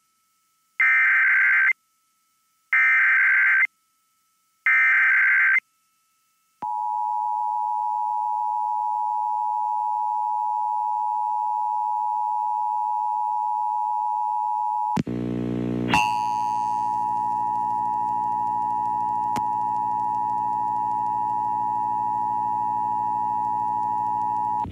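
Emergency Alert System SAME header: three short data bursts of warbling modem tones, followed by the long steady EAS attention signal tone. A click and a buzz break in about two-thirds of the way through, after which the tone continues harsher and buzzier.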